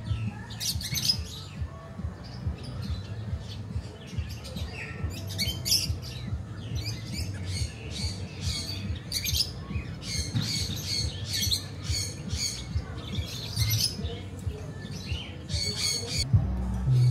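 Parrots and other birds squawking and chirping in short, repeated calls, with background music playing underneath.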